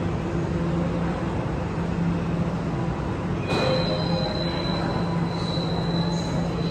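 Metro train standing at the platform, its onboard equipment humming steadily. About three and a half seconds in, a high, steady door-closing warning tone starts and sounds for about three seconds as the train doors and platform screen doors close.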